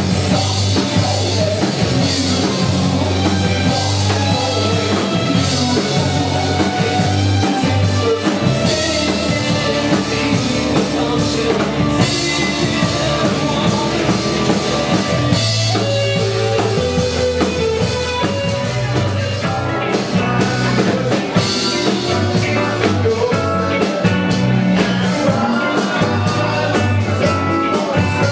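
A rock cover band playing a song, with a drum kit and a strong bass line carrying it.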